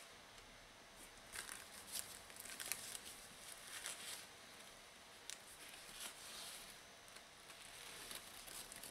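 Faint, intermittent rustling and crinkling of foam packing wrap being peeled open by hand, with a few soft scratches and ticks.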